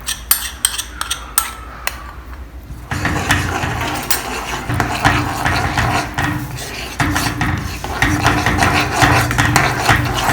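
A metal spoon clinking against a pan as a chilli sauce is stirred after cornflour paste goes in. About three seconds in, the separate clinks give way to a louder, continuous scraping and clatter of steady stirring.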